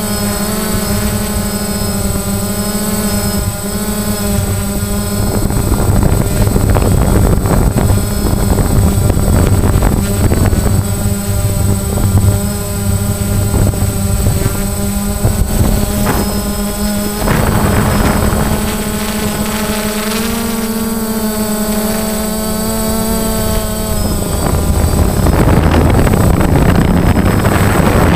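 DJI Phantom quadcopter's electric motors and propellers whining steadily, heard close from the camera slung beneath it, the pitch shifting slightly as the craft manoeuvres. Wind buffets the microphone in rough gusts several times, heaviest near the end.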